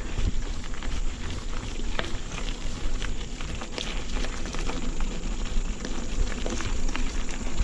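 Mountain bike riding over a rough dirt trail: tyre and ground noise with many small rattling clicks and knocks from the bike.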